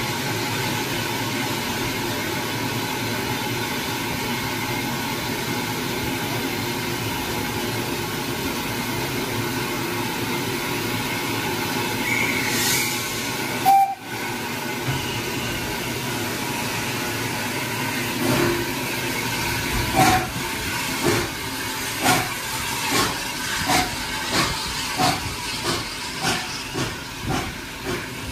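Austerity 0-6-0 saddle tank steam locomotive standing with a steady hiss of steam, giving a brief whistle about halfway through, then pulling away with exhaust beats that start about two-thirds of the way in and quicken as it gathers speed.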